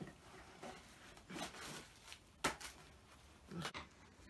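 Faint rustling and rubbing of packing paper being pulled out of a new football boot, with a few short sharp knocks of handling, the loudest about two and a half seconds in.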